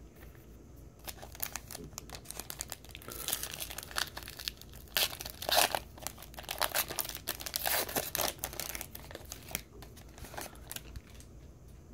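Foil wrapper of a Panini Score football card pack crinkling and tearing as it is opened by hand, with a run of sharp crackles that is loudest around the middle.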